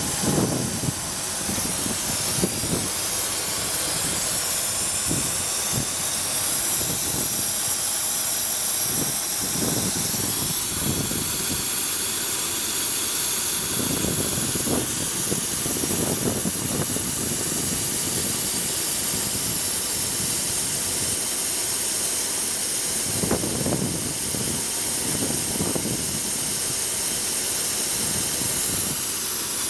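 Car engine running on a GEET fuel-processor setup, idling steadily, with a strong steady hiss over it.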